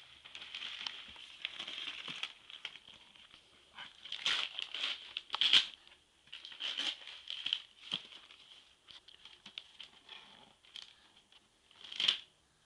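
Gift-wrapping paper being torn and crumpled in irregular rustling bursts as a present is unwrapped, loudest about five seconds in and again near the end.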